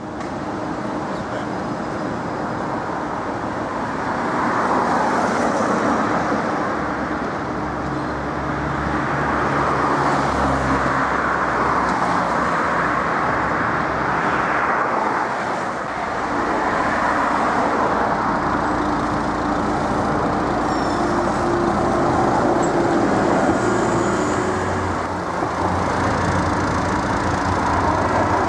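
Street traffic beside a tram line: a steady rush of passing cars and trams, with the hum of motors rising and falling as vehicles go by.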